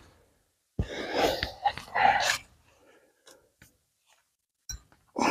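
A man's forceful, straining breaths, two hard bursts a second or so apart, as he wrestles a concrete fence post loose, then a few faint ticks and a short knock near the end.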